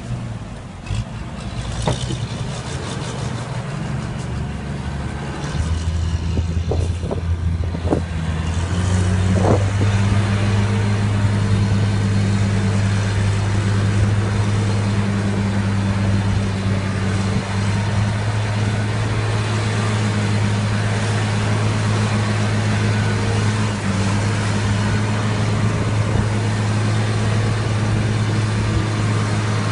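Fiat 160-90 DT tractor's diesel engine working in the field. Its pitch and loudness step up between about six and ten seconds in, with a few knocks along the way, then it holds a steady drone.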